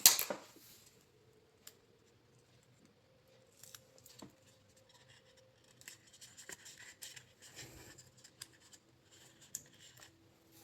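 Double-sided tape being cut and handled: a short, loud rasp at the very start, then faint scratching and rustling.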